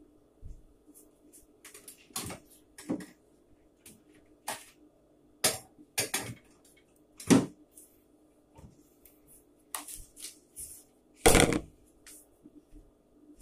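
Kitchen handling noises as someone fetches a plastic bowl and cereal: a dozen or so irregular knocks, clicks and clatters, the loudest about seven and eleven seconds in, over a faint steady hum.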